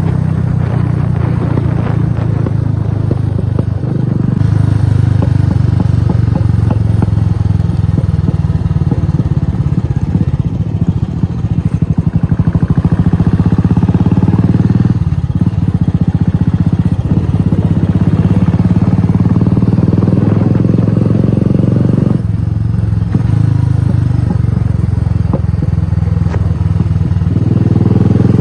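Royal Enfield Classic 350's single-cylinder engine running under way through an aftermarket exhaust, a deep bassy thumping note that rises and falls with the throttle. It eases off briefly about halfway through and picks up again near the end.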